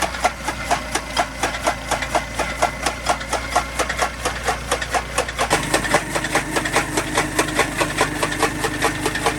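Motorized fodder (chaff) cutter, driven by a two-wheeler engine, chopping grass for cattle feed. The engine hums steadily under a rhythmic clacking of about five knocks a second, and the engine note shifts about halfway through.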